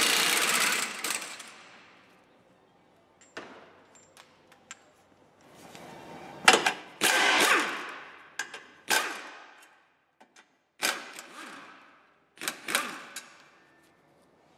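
Tools working on the drive shaft and gearbox fastenings: a run of short metallic mechanical bursts, each starting sharply and dying away, with a few light clicks between them.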